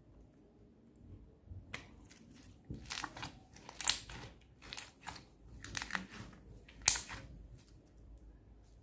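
Clear slime mixed with sand being squeezed and stretched by hand: a run of crunchy crackles and pops starting a couple of seconds in, the sharpest near the end.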